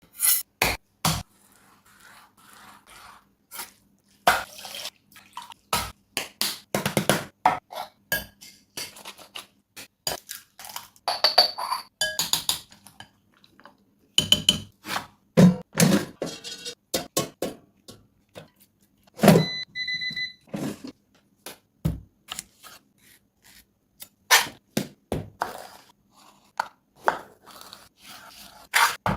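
Kitchen preparation sounds for a chicken stir-fry: irregular knocks, clinks and scrapes of utensils against bowls and pans, with a brief high ringing tone about twenty seconds in.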